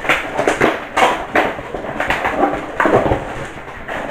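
Plastic packaging crinkling and tearing in a quick run of short rustling bursts as a pack of foam darts is opened by hand.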